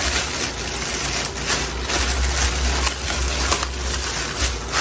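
Thin clear plastic wrapping crinkling and rustling in irregular crackles as it is pulled off a plastic dog bowl, over a low rumble of handling.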